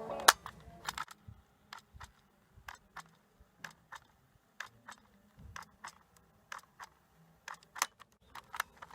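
A series of sharp, irregular small clicks and taps, two or three a second, the loudest just after the start, from small plastic and metal parts being handled.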